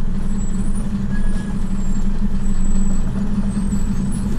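Vehicle engine running with a steady low drone as it drives slowly, heard from on board.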